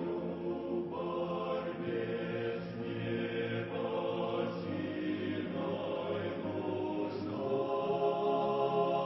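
Choir singing slowly in sustained chords, the chords shifting every second or two.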